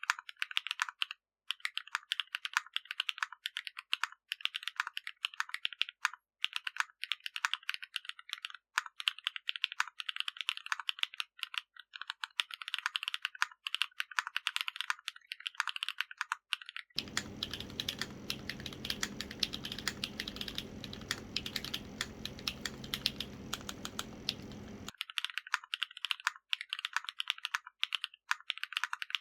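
Continuous fast typing on a Zoom75 gasket-mount mechanical keyboard with Krytox-lubed HMX Cheese switches, a carbon-fibre plate and PBT keycaps: a dense stream of key clicks. For about eight seconds in the middle, a steady low hum sits under the keystrokes.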